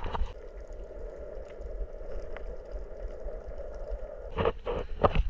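Water heard from below the surface: a steady, muffled watery hum with a low rumble, after a sharp splash at the start. Several sharp splashes and knocks come near the end.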